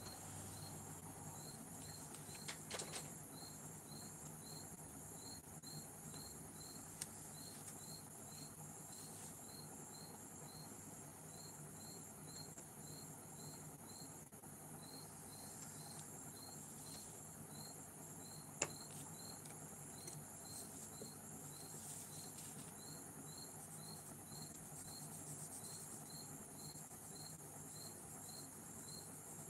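Crickets chirping steadily, a short high chirp about twice a second over a constant high-pitched insect hiss. A few sharp clicks break in, a small cluster near the start and one louder click about two-thirds of the way through.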